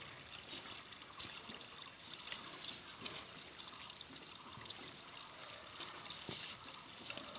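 Steady trickling water, with a few faint clicks.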